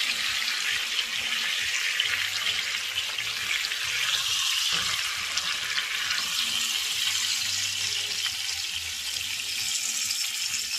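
Butter and pan juices sizzling in a frying pan, a steady hiss.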